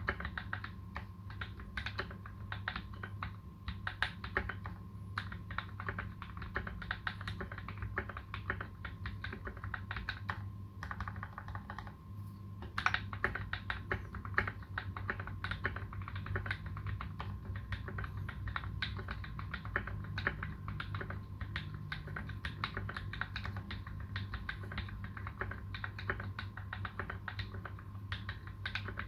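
Continuous fast typing on a Space65 custom mechanical keyboard with lubed Tealios v2 linear switches and PBT keycaps: a dense stream of keystroke clacks, broken by a pause of about two seconds a little over a third of the way in.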